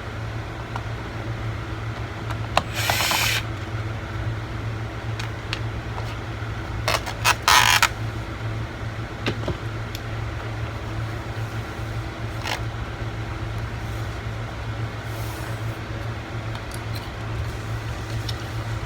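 A tool prying up the rubber foot strip on a laptop's plastic underside: a few sharp clicks and two short scrapes, the louder one about seven seconds in, over a steady low hum.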